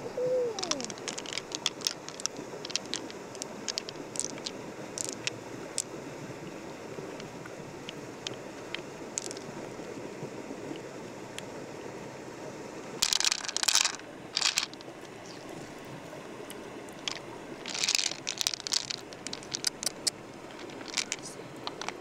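Scattered sharp clicks and crunches of hard objects being handled, with two denser bursts of crunching about 13 and 18 seconds in, over a steady background hiss.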